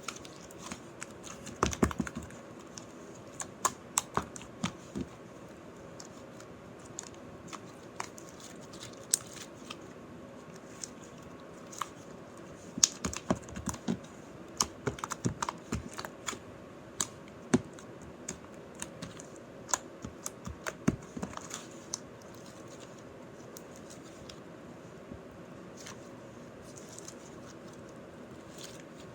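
Slime being poked hard and fast with fingers, making irregular sharp clicks and pops that come in quick clusters and thin out near the end.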